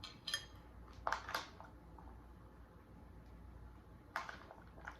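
Eating close to the microphone: a few short crunching bites, with a light ringing clink of tableware about a third of a second in.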